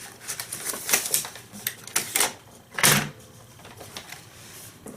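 Irregular plastic clicks and knocks from handling a receipt printer while loading a paper roll into it, with one louder knock about three seconds in.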